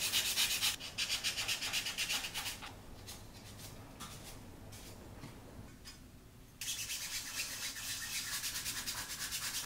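Hand wet sanding of a primed 3D-printed plastic part with a foam sanding pad: quick back-and-forth rasping strokes, stopping for about four seconds in the middle, then starting again.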